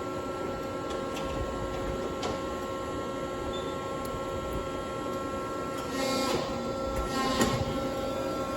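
Accurpress 7608 60-ton CNC press brake running, its hydraulic system giving a steady hum with several fixed tones. Two brief louder rushing sounds come near the end.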